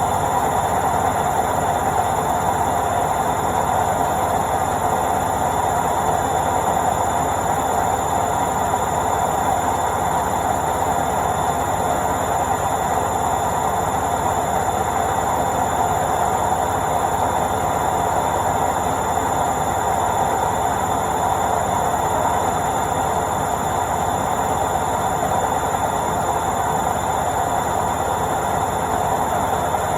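Washing machine on its spin cycle: the drum spinning at a steady high speed, giving a constant whir with a fine, rapid rattle underneath.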